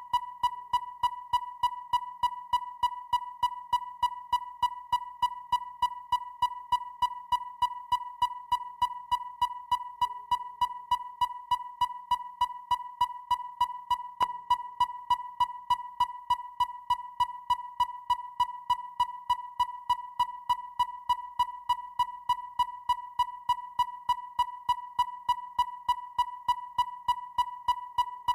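Depth finder (sonar) beeping: short electronic pings at one high pitch, repeating evenly about three times a second, each sharp at the start and fading quickly.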